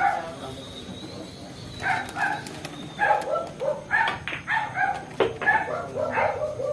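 A dog barking and yipping in short, repeated calls, with a few sharp clicks among them.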